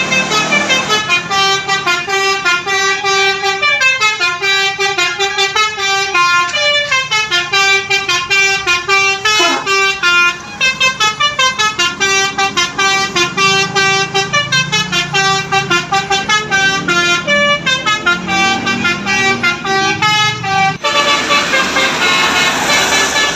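Tour bus "telolet basuri" musical air horn playing a fast tune of short stepped notes, loud and continuous. About 21 s in the sound cuts to a noisier mix, with horn tones over a rushing hiss.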